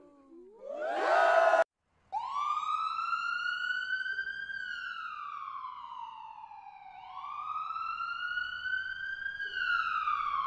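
A siren wailing, its pitch rising slowly, holding, then falling in cycles of about five seconds, starting about two seconds in. Before it, a short burst of crowd cheering cuts off abruptly.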